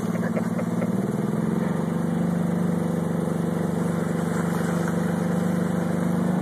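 Golf cart's small engine running steadily while it tows a sled. A few light knocks sound in the first second.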